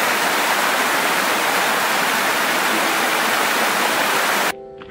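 Small creek cascading over rocks and ice, a loud steady rush of water close to the microphone. It cuts off suddenly near the end as ukulele music comes in.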